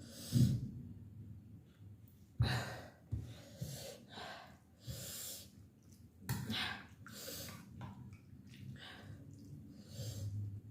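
A person breathing sharply and gasping, a short breath about once a second, while eating very spicy chilli-laden noodle soup.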